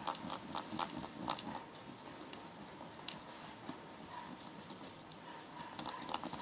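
A stick stirring thick glue-and-laundry-powder slime in a small cup, making quick faint clicking taps: a cluster of them at the start, a few in the middle and more near the end. The mixture is thickening into slime.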